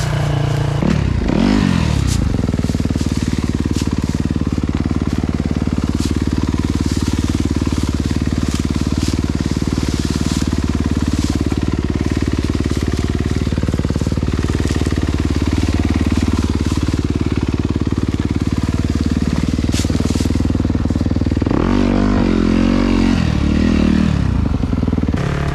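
Yamaha YZ250FX dirt bike's single-cylinder four-stroke engine running at a steady idle, with a brief rise and fall in pitch about a second in and a wavering rev for a couple of seconds near the end.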